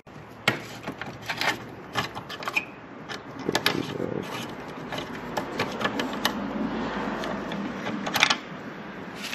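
Hand tools working the fairing bolts on a motorcycle: irregular small metallic clicks and taps with rubbing and scraping as the fasteners are undone.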